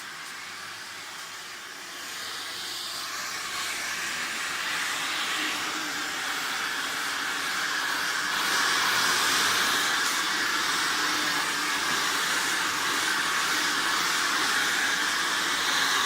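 Hand-held hair dryer blowing with a steady rushing hiss during a blow-dry, growing louder over the first several seconds and then holding steady.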